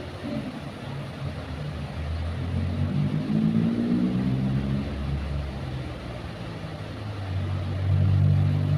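Diesel locomotive engine rumbling as a train passes. Its low drone swells twice, with an engine tone rising in pitch a few seconds in.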